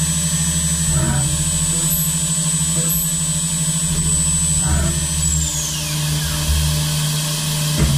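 CNC turn-mill's milling spindle running at high speed with a steady high whine over the machine's low hum, a solid carbide end mill cutting holes in a thin-walled brass tube. About five and a half seconds in the whine falls in pitch as the spindle spins down, with short cutting or axis-move noises about a second in and near five seconds.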